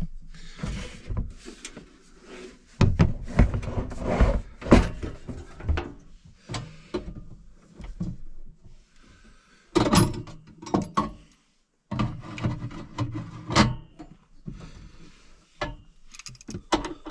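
Irregular knocks, clanks and rattles as a Coleman portable propane camp grill is opened and set up and a small propane cylinder is handled and fitted to it.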